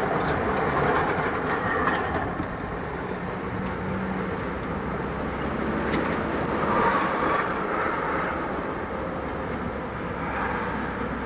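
Street trams with trailer cars running past close by on street track, a steady rumble of steel wheels on rail.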